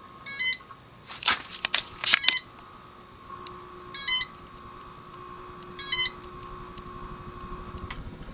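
Homestead Homestar (Kontrust) ceiling fan receiver beeping four times, a short warbling chirp each time the wall control steps the fan up a speed, with a few sharp clicks between the first two beeps. A steady hum sits under the later beeps and stops just before the end.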